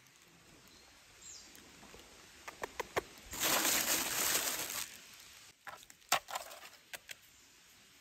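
A burst of rustling lasting about a second and a half near the middle, with scattered light clicks and taps before and after it.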